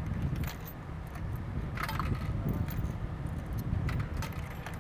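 Coins being fed one at a time into a vending machine's coin slot: a few metallic clinks as they drop in, the clearest about two seconds in with a short ring. A low steady rumble underneath.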